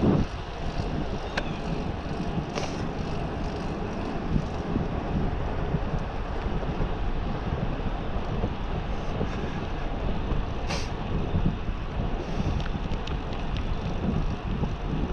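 Steady wind rush on the microphone of a moving bicycle, with faint tyre and drivetrain noise underneath and a few light clicks.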